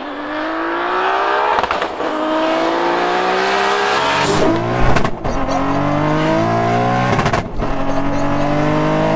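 Big-turbo 3.0-litre VR6 (R30) in a modified Audi TT accelerating hard. The revs climb, then fall back at each of several quick upshifts.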